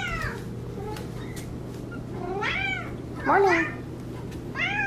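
Domestic cat meowing: three short calls that rise and fall in pitch in the second half, one of them shaped like the word "morning".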